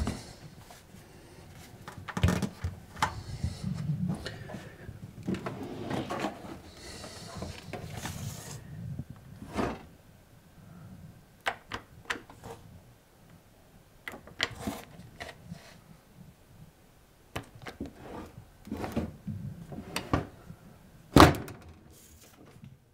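Kitchen knocks and clatter around a Bosch dishwasher: dishes and wire racks knocking, its control buttons clicked, and the door shut with one loud thunk near the end.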